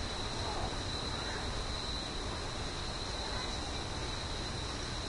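Steady background hiss with a constant high-pitched whine.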